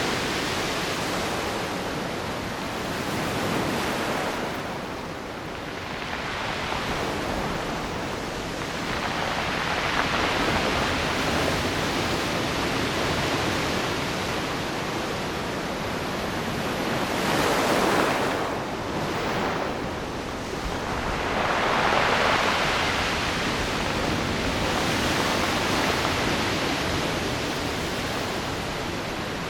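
Ocean surf breaking on the shore, a steady wash of noise that swells with each wave, the strongest near the middle and about two-thirds of the way through.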